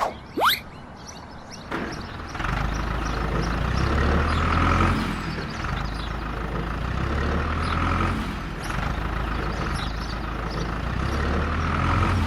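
A steady vehicle engine-like running sound starts about two seconds in, with a low rumble that swells and eases every few seconds.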